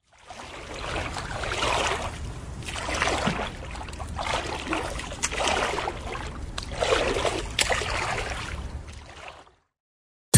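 Swimming pool water lapping and gurgling, swelling and fading in waves about every two seconds, then cutting off shortly before the end.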